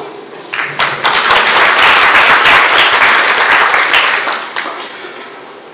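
Audience applauding: a dense patter of clapping that swells about a second in and fades away near the end.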